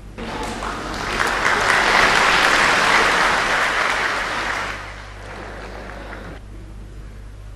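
Audience applauding: the clapping starts suddenly, swells to a peak and dies away after about five seconds.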